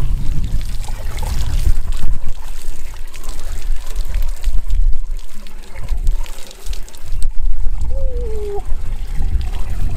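Water poured from a plastic bucket into a PVC pipe funnel, splashing and trickling, to fill the drum of a water pump. Wind buffets the microphone throughout.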